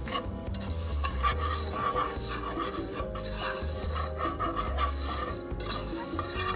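Wire whisk scraping and rasping through dry loose-leaf tea and granulated sugar on the bottom of a nonstick pot, stirred continuously as they dry-roast over low heat.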